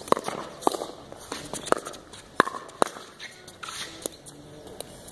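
Pickleball rally: paddles striking the plastic ball, a series of sharp pocks spaced about half a second to a second apart, with players' footsteps on the court.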